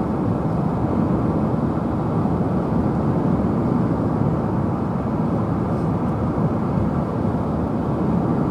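Steady road and tyre noise heard inside a moving car's cabin, a low, even rumble with no changes in speed.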